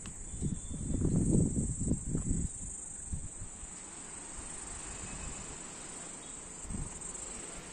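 Steady high-pitched insect drone, with wind buffeting the microphone in rumbling gusts during the first two and a half seconds.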